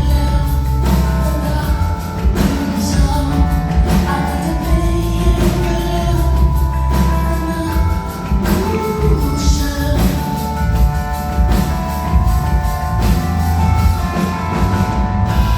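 Live band music with a sung lead vocal over heavy bass and a steady drum beat.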